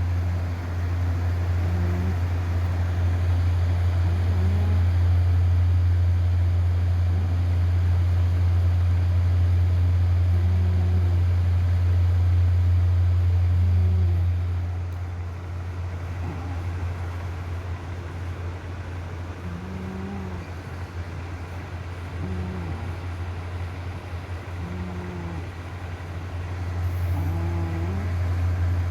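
Cat snoring in deep sleep, a short snore every few seconds. A steady low hum runs underneath and is the loudest sound; it drops in level about halfway through.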